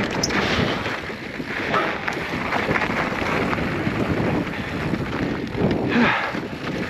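Wind buffeting the microphone of a mountain bike rider's camera on a fast descent, with the bike rattling and knocking and the tyres crunching over rough, rocky trail.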